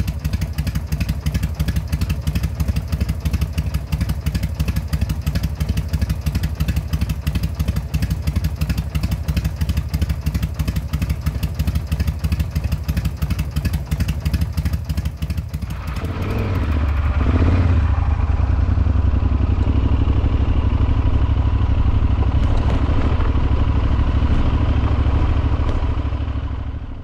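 Motorcycle engine running with a rapid, even firing pulse. About sixteen seconds in, the sound changes to a steadier drone with a heavier low end.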